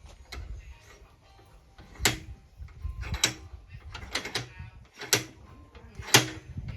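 Hammer blows on a copper bar being bent, about one a second, each a sharp knock with a short metallic ring; the last blow is the loudest.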